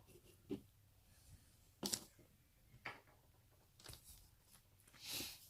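Faint short scrapes and rubs, about one a second, from a silver ring being worked and handled during a sterling silver test. The last is a little longer.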